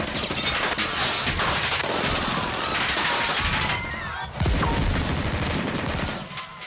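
Rapid, sustained gunfire from handguns fired out of a passing car in a drive-by shooting, with a heavier boom about four and a half seconds in.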